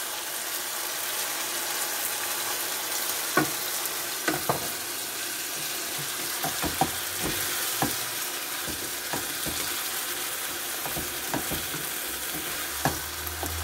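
Chicken pieces and freshly added chopped tomatoes sizzling in hot oil in a frying pan, a steady hiss. A wooden spatula stirring them knocks and scrapes against the pan now and then.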